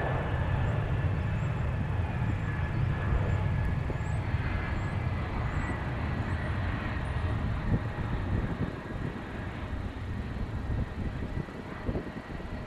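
Jet airliner engines rumbling, with a faint steady whine over the deep noise; the rumble eases off after about eight seconds.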